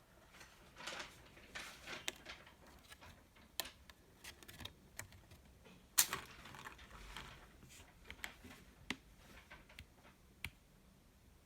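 Keychron K2 mechanical keyboard being handled: soft rustling in the first few seconds, then scattered sharp clicks and knocks, the loudest about six seconds in.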